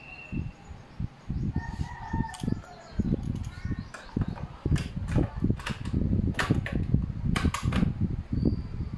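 Sharp plastic clicks and clatter of a cassette being loaded into a portable boombox's tape deck and the deck's buttons and door being pressed, over low bumps of handling.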